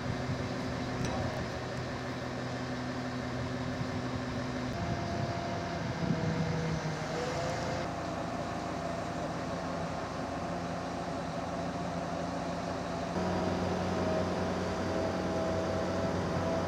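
Diesel engines of Grove mobile cranes running steadily under lifting work, a hum with a few steady tones. The tones change about five seconds in and again about two-thirds of the way through.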